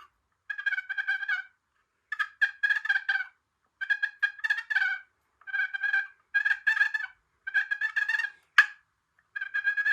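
Wooden box turkey call run with very light paddle pressure to make purrs: a series of about seven short, fluttering, rolling strokes with brief gaps between them. One sharp, very short note sounds near the end.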